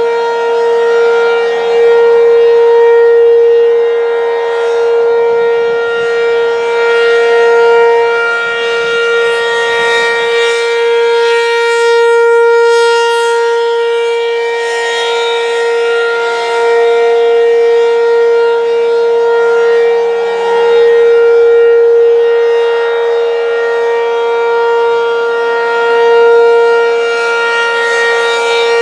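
ACA P-15 outdoor warning siren sounding a steady tone for a full drill test. Its pitch holds constant while its loudness swells and fades about every six seconds as the siren rotates. Wind rumbles on the microphone for a few seconds near the start.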